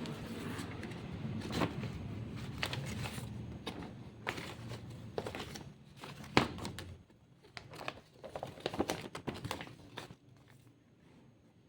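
Packaging being handled during an unboxing, crinkling and rustling in irregular sharp crackles that thin out near the end.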